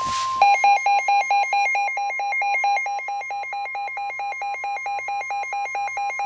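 NOAA Weather Radio warning alarm: a steady 1,050 Hz alert tone, signalling that a warning broadcast is about to follow. About half a second in, a second electronic alarm joins it, alternating rapidly between two pitches about four to five times a second.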